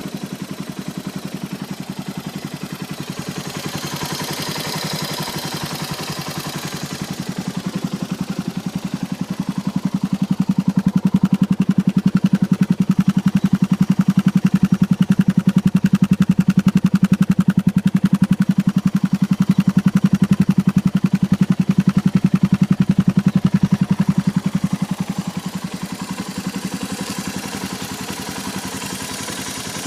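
Suzuki DR650SE single-cylinder engine idling with a steady mechanical clatter, which the owner takes for cam chain noise. It grows louder through the middle and eases off again near the end.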